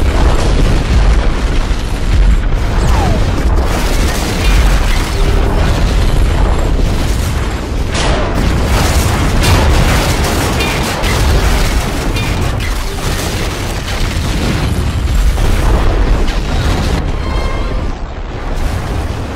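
A rapid series of heavy explosions, one boom running into the next over a continuous deep rumble, with a sharp crack about eight seconds in; it eases slightly near the end. Music plays underneath.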